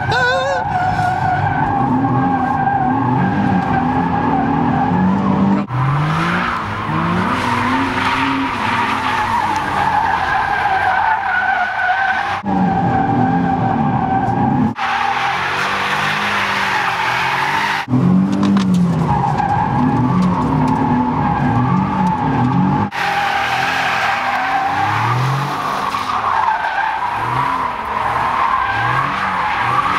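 Nissan 370Z drifting: its tyres squeal continuously in a steady high tone while its 3.7-litre V6 engine revs rise and fall underneath as the wheels spin. The sound breaks off abruptly every few seconds and picks up again at the edits.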